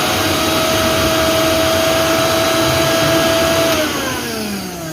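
750-watt mixer grinder motor running with no jar fitted, a steady whine. It is switched off about four seconds in and winds down, its pitch falling.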